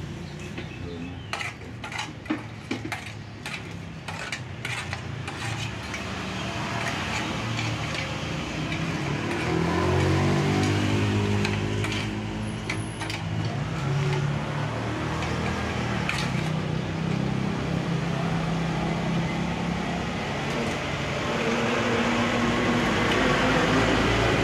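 A metal rod clinking against an aluminium pot of oil several times, then an engine running, its pitch rising and falling.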